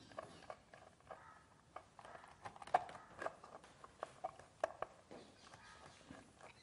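Faint, irregular clicks and small taps of wire being handled and fastened into the terminals of a kit-kat fuse on a wooden board.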